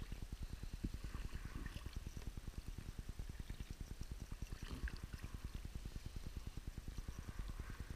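Sea kayak paddled through calm water with small floating ice: soft paddle-blade dips and drips about every three seconds, over a fast, even low flutter.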